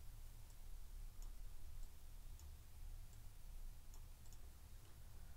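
A handful of faint computer mouse clicks, irregularly spaced, over a low steady hum.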